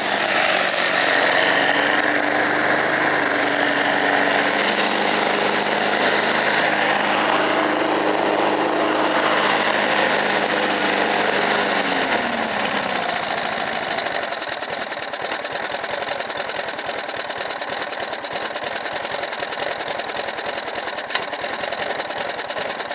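Briggs & Stratton lawnmower engine running at full throttle with the throttle taped open, choking on berries fed into its intake. About halfway through its pitch drops and it settles into a rougher, quieter, uneven running.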